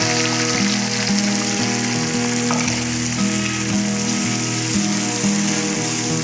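Sliced onions, green chillies and tomato sizzling as they fry in hot oil in a metal pot, a steady hiss.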